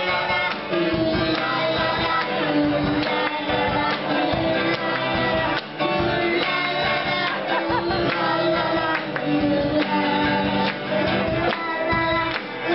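Live rock band playing: acoustic and electric guitars over a drum kit, with the beat marked by steady drum hits, and voices, including young girls', singing along.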